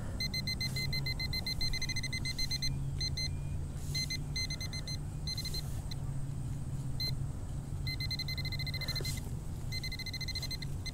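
Handheld metal-detecting pinpointer beeping: a high electronic tone in quick pulses that comes in irregular runs and breaks off, which the user takes for the pinpointer going on the fritz. A low steady hum runs underneath.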